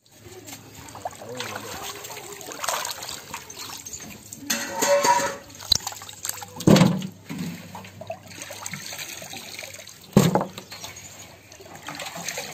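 Raw chicken pieces being washed by hand in a metal basin of water: irregular splashing, and water dripping back into the basin as pieces are lifted out. Two louder splashes or slaps stand out, about seven and ten seconds in.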